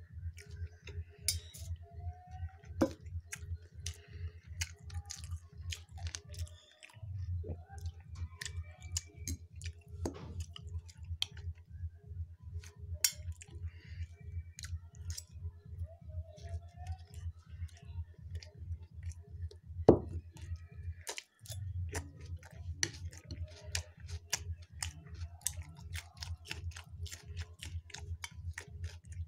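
A person chewing a mouthful of Mughlai paratha, egg-stuffed fried flatbread: many small irregular mouth clicks and crunches. Under it runs a steady low hum that cuts out briefly twice.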